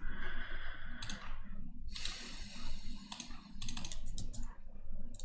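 Computer keyboard and mouse clicks, a handful of sharp, irregular clicks.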